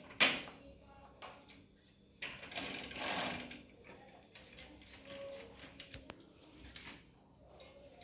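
Mountain bike shifter and drivetrain being worked by hand during a test shift: a sharp click at the start, a rattling whirr for about a second, then scattered small clicks.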